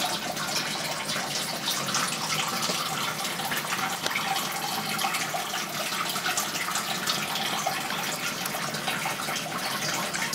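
Steady trickle and splash of running water in a home aquarium, with fine bubbling crackle and no pause.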